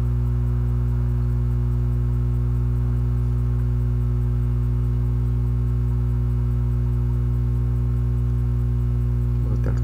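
Steady low electrical hum with a row of fainter overtones above it, unchanging throughout: mains hum picked up on the recording.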